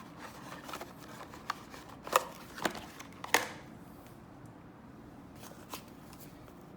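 Hand handling of paper documents and cardboard packaging: scattered light rustles and sharp taps, the loudest three close together about two to three and a half seconds in, and a couple of fainter taps later.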